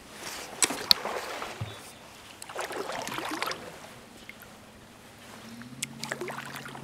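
Paddle strokes pulling through calm water, two swishing swells a couple of seconds apart, with a few sharp knocks in the first second.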